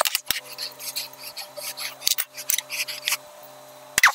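Light metallic clicks and scrapes of small diesel fuel injector parts being handled and turned by hand on an injector clamped in a steel bench vise, with a sharper click at the start and about four seconds in. A faint steady hum runs underneath.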